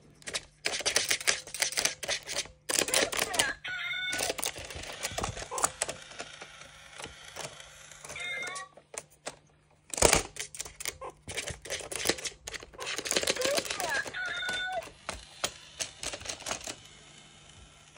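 A meerkat's claws scratching and scrabbling at a cardboard coin-bank box in rapid runs of dry clicks, with short high chirps a few times and one sharp knock about halfway through.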